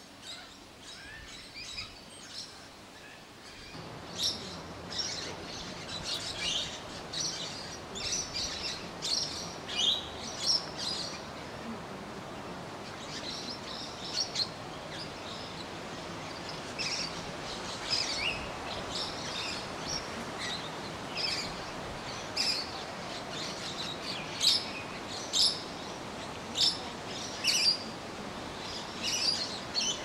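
A flock of birds in the treetops, giving many short, high chirps and calls over a steady outdoor hiss. The calling thickens about four seconds in and keeps up in quick, overlapping bursts.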